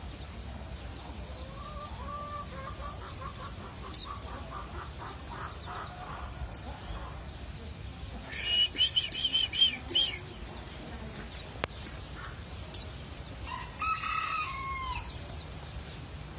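White-eye (pleci) giving scattered sharp, high chirps, with a loud run of quick twittering notes about halfway through. Chickens cluck in the background and a rooster crows near the end.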